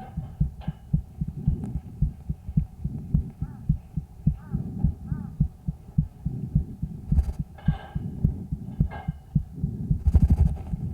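A calf's chest sounds picked up through a stethoscope microphone on the third day of illness: a steady run of short low thuds with breath noise. A few brief scratchy noises come near the end.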